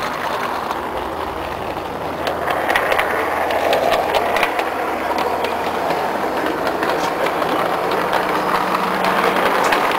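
Garden-railway model train rolling along the track, heard from a camera riding on the train: a steady rumble of wheels on rail, with irregular sharp clicks from the wheels on the track. From about two seconds in it gets a little louder and the clicking thickens.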